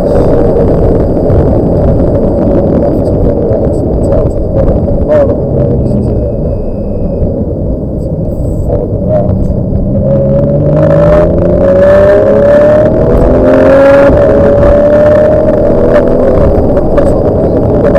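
Porsche 911's flat-six engine heard from inside the cabin, running hard. It eases off about halfway through, then its revs climb steadily for several seconds as the car accelerates, before holding steady near the end.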